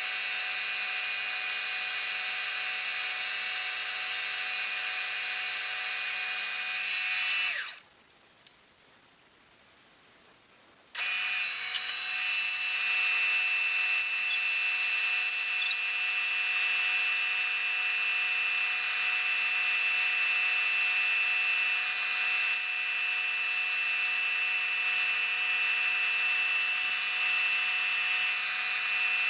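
Wood lathe running with a steady motor whine and the hiss of the spalted maple blank being worked. About seven and a half seconds in it winds down and stops, there is a single click, and about three seconds later the whine comes back abruptly and runs steadily again.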